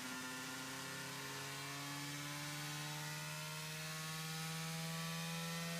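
Bedini motor running off about 50 volts, its rotor spinning up: a steady buzzing whine that rises slowly in pitch as the rotor gains speed.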